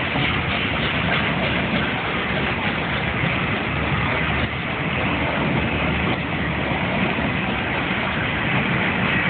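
Steam-hauled passenger train pulling out, its coaches rolling past close by in a steady, continuous rumble of wheels on rails.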